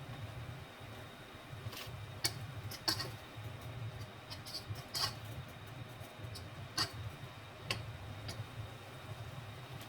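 Scattered sharp clicks and ticks, about six louder ones at uneven intervals, over a steady low hum.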